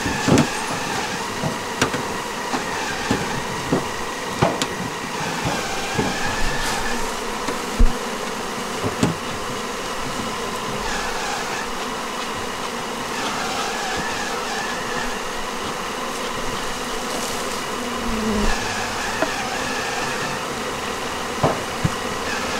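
A dense swarm of honeybees buzzing steadily around opened hives that are being disturbed, frames lifted out and brushed clear of bees. Scattered sharp knocks, as wooden frames bump against the hive boxes.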